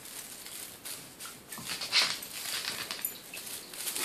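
A kitten and a dog scuffling on a laminate floor around a feather wand toy: irregular pattering, scratching and light knocks from paws, with one sharper knock about two seconds in.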